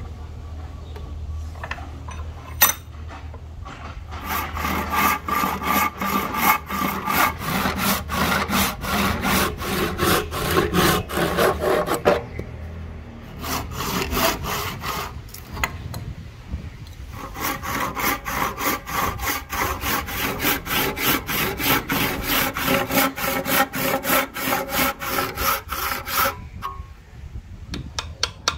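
A hand saw cutting wood in quick, even back-and-forth strokes, the blade ringing with each stroke. It runs in two long bouts with a short pause between.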